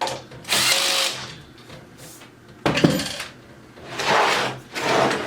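Power driver run in short bursts, tightening the desk's assembly screws, with a sharp knock about two and a half seconds in.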